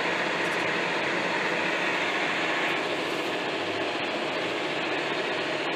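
John Deere 6155R tractor's six-cylinder diesel running steadily at about 1700 rpm, heard inside the cab as a constant drone while it pulls two loaded grain trailers uphill under heavy load.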